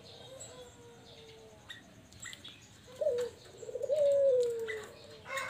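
Barbary dove (puter) cooing: a faint coo trails off in the first second, then about three seconds in comes a short note followed by a longer one that rises briefly and slowly falls away.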